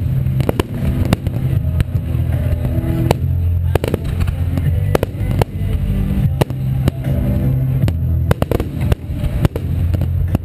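Aerial firework shells bursting in quick succession: many sharp bangs, often several a second, over a continuous low rumble.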